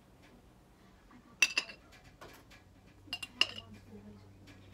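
A metal spoon clinking against a glass jar of pizza sauce as sauce is scooped out and spread, a few short ringing clinks with the sharpest about a second and a half in and a quick cluster near the end.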